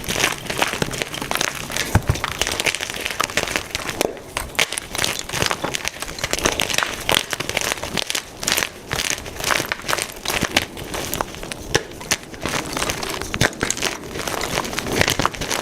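Blocks of white gym chalk being crushed and crumbled: a dense, irregular run of dry crunches and crackles, with a brief lull about four seconds in.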